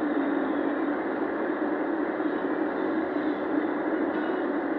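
Steady road and engine noise of a vehicle cruising at expressway speed, heard from inside the cabin.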